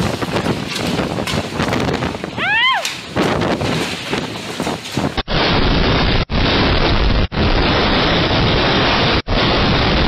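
Storm-force wind gusting and rushing over the microphone. A brief high tone slides up and down about two and a half seconds in. After a sudden change of sound about halfway, the wind noise is heavier and deeper and cuts out for an instant roughly once a second.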